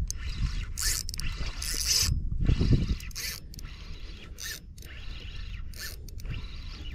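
Fishing reel being cranked to retrieve a lure, its gears whirring and clicking, with short hissing sounds coming and going over a low rumble.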